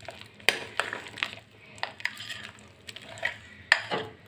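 Thick urad dal medu vada batter being beaten in a glass bowl: irregular wet slaps and sharp clicks against the glass.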